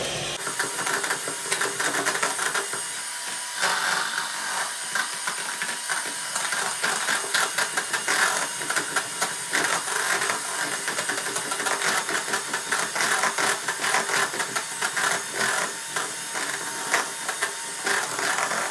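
Electric hand mixer whipping cold milk and whipped-cream powder in a jug: the motor runs steadily while the beaters rattle irregularly against the jug.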